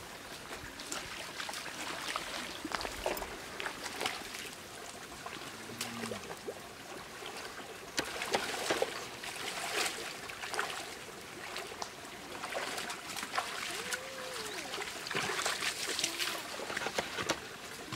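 Small rocky stream trickling, with scattered scuffs and clicks of footsteps and rustling on rock and grass.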